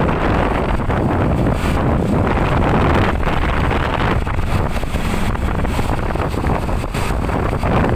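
Wind buffeting the microphone while moving with traffic, over a steady rumble of vehicle engine and road noise; no horn tune sounds.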